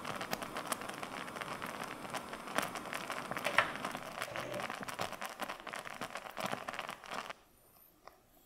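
Blueberry coulis boiling in a saucepan: thick purée bubbling with dense crackling and popping, which cuts off suddenly about seven seconds in.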